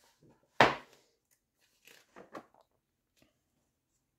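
Pages of a large softcover book being turned by hand: one loud paper swish about half a second in, then a few quieter rustles of paper a little later.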